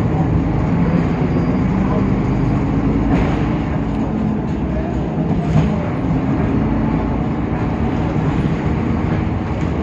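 Temsa Avenue LF city bus heard from inside while on the move: its DAF PR 228 diesel engine and ZF automatic gearbox running steadily, with road noise and body rattle.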